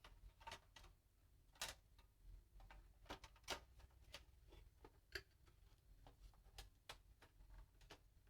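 Faint, irregular small clicks and taps of parts being handled and fitted as the Xbox One S console is reassembled.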